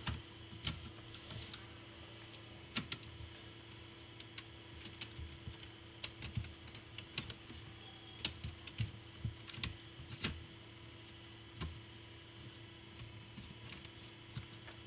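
Irregular small clicks and taps of a Dell Inspiron 3558 laptop's plastic and metal internals being handled and pressed into place as its motherboard is refitted, over a faint steady hum.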